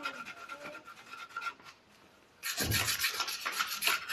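A hand rubbing and scratching quickly at the frame of a child's bicycle, in two bouts: one at the start, then a short lull, and a louder one from about two and a half seconds in with a dull knock as it begins.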